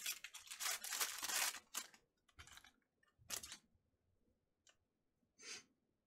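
Foil trading-card pack being torn open, a dense crinkling tear for about two seconds, followed by a few short rustles as the cards are handled.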